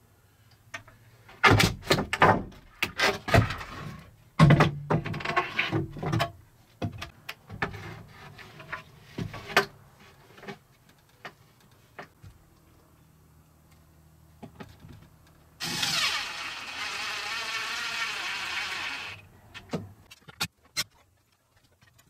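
Knocks and clatter of wooden boards being handled and set down over the joists, then a cordless drill runs steadily for about three and a half seconds.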